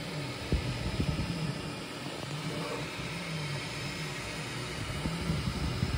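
Bambu Lab 3D printer at work: its stepper motors whine in pitches that rise and fall again and again as the print head traces the part, over the steady whir of the cooling fan.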